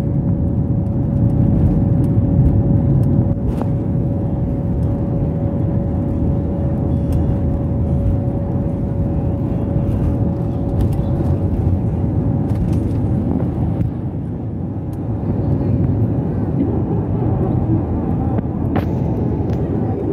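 Cabin noise of a jet airliner taking off: the turbofan engines at takeoff thrust make a loud, steady rumble, heard from inside the cabin. A steady hum over the rumble fades out about halfway through.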